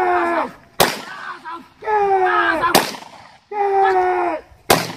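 Three loud, drawn-out yells that fall in pitch, each cut off by a sharp crack of a stick striking a plastic canister, about every two seconds.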